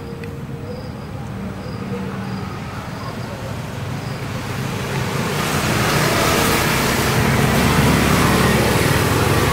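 Road traffic: a passing vehicle's noise builds from about halfway through and stays loud.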